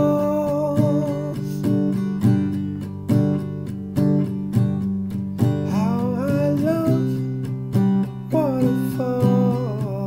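A man singing over his own strummed acoustic guitar: steady strumming, with three drawn-out sung phrases, one near the start, one rising in pitch about two-thirds through, and one falling near the end.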